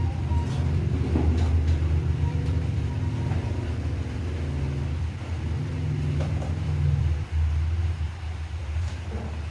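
A low, steady motor-like rumble that swells and eases slightly, with a few light clicks and knocks.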